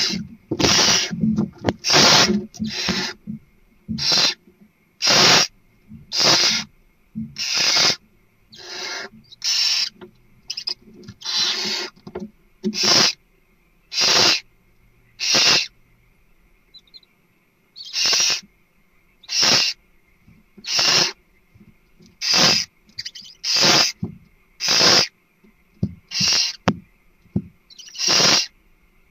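Barn owl giving a long series of short, harsh hisses, roughly one a second, with a brief pause about halfway through.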